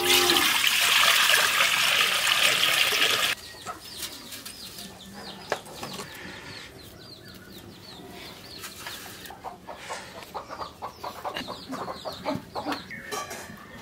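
Water poured from a bowl into a large aluminium cooking pot, a loud splashing rush for about three seconds that cuts off abruptly. After it, chickens clucking and chirping in short high calls and quick bursts.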